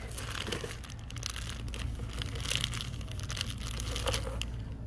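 Plastic zip-top bags of glass beads crinkling and rustling as a hand rummages through them in a cardboard box, with many small crackles throughout.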